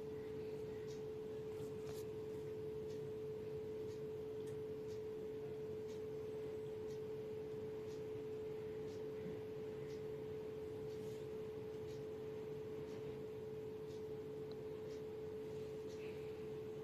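A steady, unwavering mid-pitched tone hums throughout, with faint scattered ticks over it.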